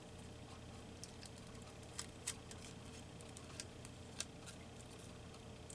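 Small scissors snipping paper, a few short sharp snips with pauses between them, over a faint steady hum.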